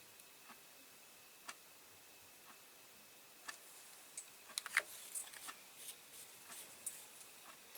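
Faint small clicks and taps of a tiny rivet and tools being handled and pressed into a diecast metal model car body: one click about a second and a half in, then a quick run of sharper clicks from about three and a half seconds on.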